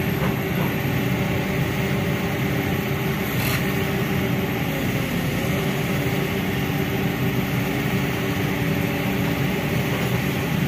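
Kobelco SK200 hydraulic excavator's diesel engine running steadily under load while its arm pushes against a coconut palm.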